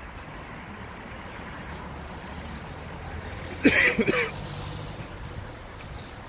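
Steady low outdoor rumble, like wind and distant traffic, under a quiet crowd. A short vocal sound, a brief word or cough, comes about three and a half seconds in.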